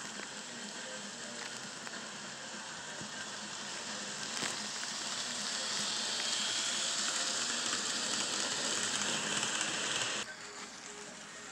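N scale model passenger train running past, a steady hissing rush of wheels and motor on the rails that grows louder as it comes close and drops off suddenly about ten seconds in.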